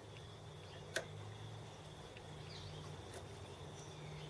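Faint, steady machine hum with a thin, high whine over it, broken by one sharp click about a second in and a lighter click a couple of seconds later.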